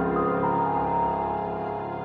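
Background music: a slow, soft instrumental of long held notes, growing slightly quieter.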